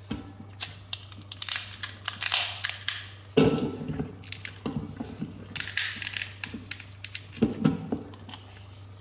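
A wet, ice-encrusted cardboard smartphone box being handled and pried open: irregular crackling, crunching and rustling, with a sharp knock a little over a third of the way in.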